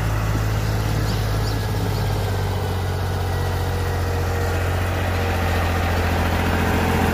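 Fiat 480 tractor's three-cylinder diesel engine running steadily, pulling a tined cultivator through ploughed soil.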